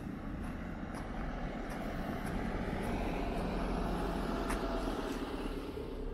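A passing vehicle: a steady rumble that swells to its loudest about three to five seconds in and then eases off.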